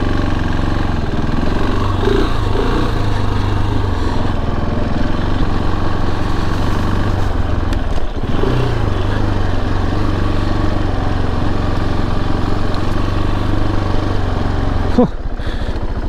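KTM 690 Enduro R's single-cylinder engine running steadily under way, with a short break in the drive about halfway through and the engine easing off near the end.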